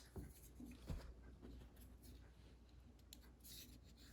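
Near silence with faint handling noise: light scraping and small taps, with one soft knock about a second in, as knives are picked up and set down.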